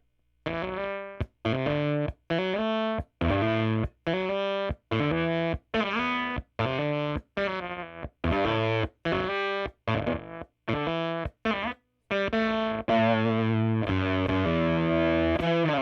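Electric guitar played through a Jext Telez Dizzy Tone V7 fuzz pedal with its sustain knob turned down, which tames the fuzz. A run of short, choppy notes and chords, each cut off sharply, then longer held notes near the end.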